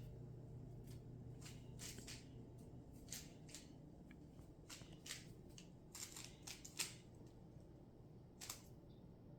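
Rubik's cube being turned by hand: faint, irregular plastic clicks as its layers are twisted, about fifteen over several seconds, some in quick pairs.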